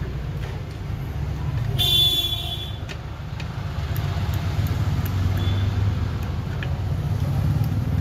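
Background road traffic: a steady low rumble, with a short high-pitched toot about two seconds in.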